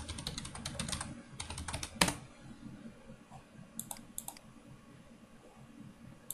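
Typing on a computer keyboard: a quick run of keystrokes ending in one louder key strike about two seconds in, followed near the middle by a few separate clicks.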